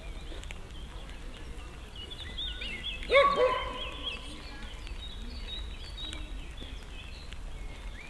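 A dog barking twice in quick succession, loud and sharp, about three seconds in. Songbirds chirp and twitter around it over a faint outdoor hiss.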